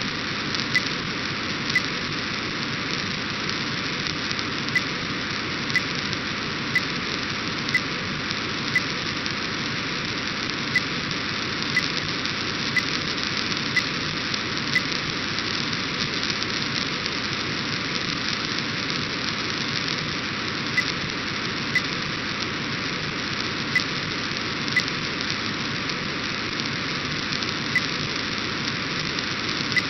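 Steady hiss of the RTL-SDR receiver's audio tuned to an Orbcomm satellite downlink near 137.7 MHz, with short sharp ticks about once a second.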